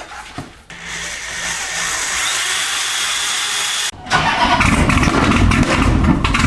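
Car engine starting: a rising hiss for about three seconds that cuts off sharply, then the engine catching into a loud, deep, steady running sound. The car is plausibly the Dodge Hellcat with its supercharged 6.2-litre Hemi V8.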